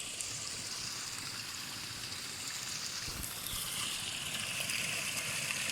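Cold spring water running and splashing in a steady rush; about three seconds in, the sound shifts lower in pitch and gets a little louder.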